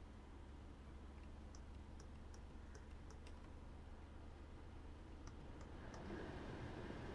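Climate-control buttons of a 2021 Perodua Ativa clicking under a fingertip, about two or three clicks a second in two runs, over the low steady hum of the 1.0-litre three-cylinder turbo engine idling. About six seconds in, the air-conditioning blower rushes up louder as the fan speed is raised.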